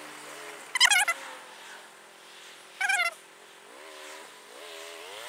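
Kawasaki ER-6n parallel-twin motorcycle engine heard from the rider's helmet, revving up and dropping back several times as it goes through the gears, its pitch raised by the sped-up footage. Two short, loud, high-pitched squeals cut through about one second and three seconds in.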